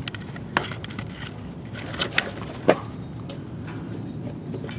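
A few sharp metallic clicks and knocks from a Jeep Grand Cherokee WJ's front driveshaft being shaken by hand at its double-cardan CV yoke. This is the clunk of excessive play, which turns out to come from the worn centering piece of the double cardan joint.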